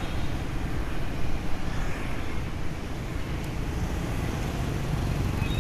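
Steady city traffic noise heard while moving along the road: scooter and car engines mixed with rushing air, with no single event standing out.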